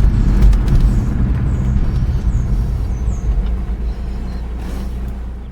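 AMC Jeep engine idling steadily on its idle circuit, gradually fading out over the last couple of seconds.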